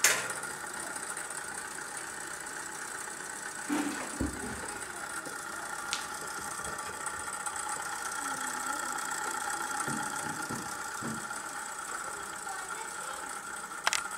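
Homopolar motor running: the bent copper wire spins fast around an AA battery, its scraped contacts rubbing on the neodymium magnets in a steady rapid buzzing rattle. A knock about four seconds in, and short clicks after six seconds and near the end.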